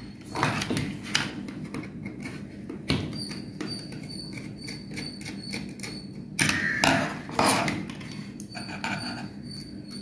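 Handling sounds from wiring the back of a modular switch plate: irregular clicks and knocks as a screwdriver and stiff wire work against the plastic socket terminal, with light rustling between them.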